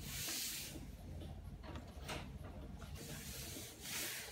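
A hand rubbing and smoothing thin HDPE plastic film and masking tape: crinkly, hissy swishes, one at the start, a short one about two seconds in and a longer one near the end.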